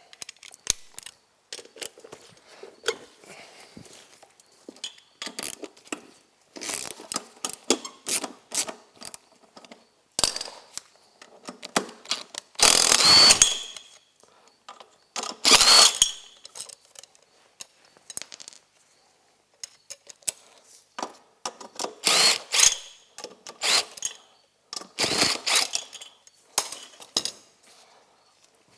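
Socket wrench and other hand tools working on wheel bolts: scattered ratchet clicks and metal clinks, with a few louder bursts about a second long.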